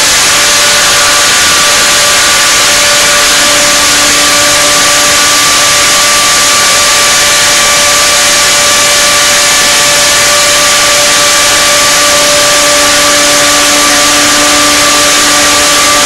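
Waring Margarita Madness blender running continuously, its motor giving a loud, steady whine as it churns a thick mixture in the jar.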